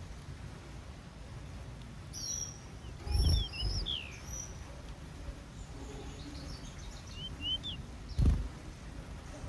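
Small aviary birds chirping in short, quick high notes, in two clusters. There are a few dull low thumps, the loudest near the middle and near the end.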